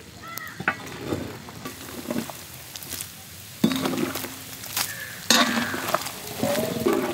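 Mutton pieces sizzling as they fry in ghee in a large metal wok, stirred and scraped with a long-handled spoon. The sizzling and scraping grow louder about three and a half seconds in, and again a little past five seconds.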